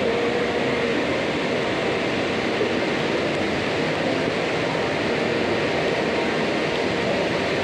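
Steady rushing background noise of a large indoor hall, an even hiss-like din with no distinct events.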